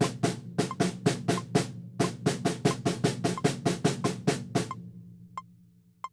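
Snare drum struck with sticks in an even run of strokes, about four a second, the drum ringing between hits. The strokes stop near the end and the drum rings out. Two short electronic beeps follow at an even pace.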